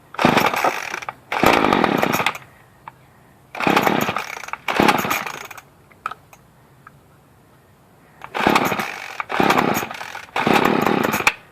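Murray M2500 two-stroke string trimmer being pull-started with a fresh spark plug. It gives seven loud bursts of about a second each, in groups of two, two and three, with pauses between. The engine does not yet keep running.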